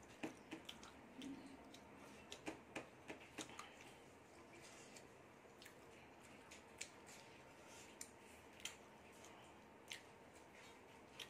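Faint eating sounds: fingers working rice on a plate and wet mouth clicks of chewing, a quick run of small sharp clicks in the first few seconds, then only a few scattered ones.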